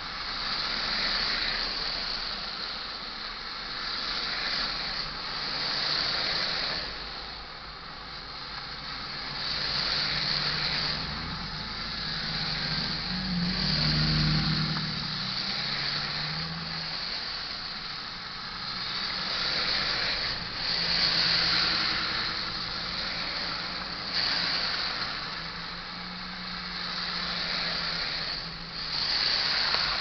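Tyres of passing traffic hissing through wet slush, in irregular swells every few seconds.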